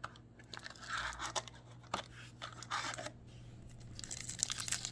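Trading cards and a pack wrapper being handled: paper rustling and crinkling in irregular bursts, turning into dense crackling about four seconds in.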